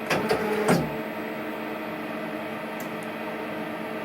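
Hardinge CNC turning centre switched on and humming steadily, several steady tones at once, after a turret test in which the turret kept spinning instead of indexing. A brief louder sound with a falling pitch comes in the first second.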